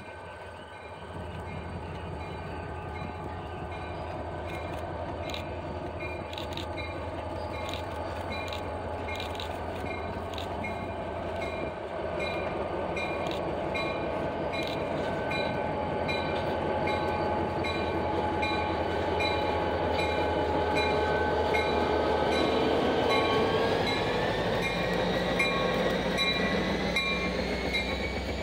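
Diesel locomotive running, a steady set of engine tones growing gradually louder, with a run of sharp clicks in the first half. Near the end the tones rise in pitch.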